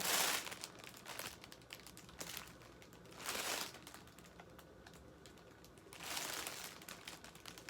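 Packaging being handled and opened: plastic wrapping crinkling and rustling in short spells, with many small clicks and taps between them.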